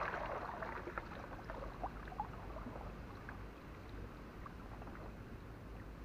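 Shallow water sloshing, with scattered small splashes and drips, as a fishing drag net is worked through the water. A low rumble runs underneath.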